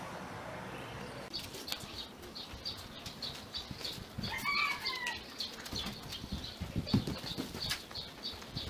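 Bare feet padding on a concrete floor, with scattered soft thumps, over a quick run of high ticks about three a second. A short call that falls slightly in pitch comes about four seconds in.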